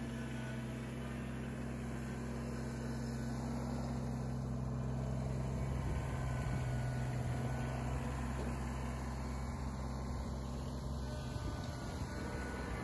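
Kubota BX sub-compact tractor's diesel engine running steadily while it works snow with a rear blade.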